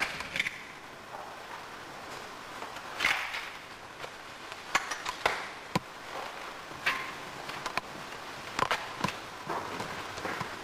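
A person handling things and moving about in a room: scattered light knocks and clicks, irregular and a second or so apart, over a faint steady hiss.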